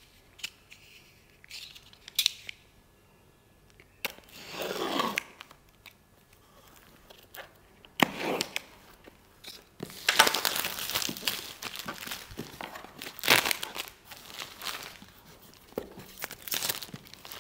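Clear plastic shrink wrap being torn and peeled off a laptop's product box, crinkling. A few light clicks and a short rustle come first, then dense crinkling and tearing over the second half.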